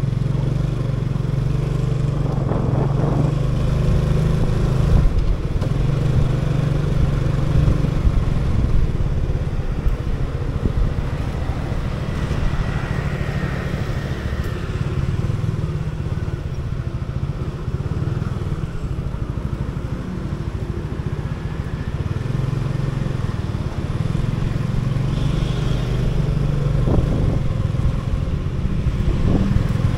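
Motor scooter engine running steadily as it rides through city traffic, with a low, even drone under tyre and street noise.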